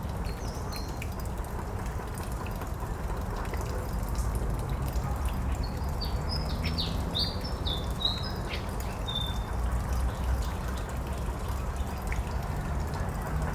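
A bird calling in short, high chirps that each drop in pitch: a couple near the start, then a quick run of them about six to nine seconds in, over a steady low rumble.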